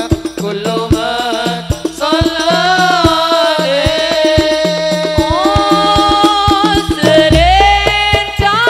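Hadroh ensemble: male voices singing a gliding, ornamented melody into microphones over a steady rhythm of rebana frame drums. Deep bass-drum booms come in near the end.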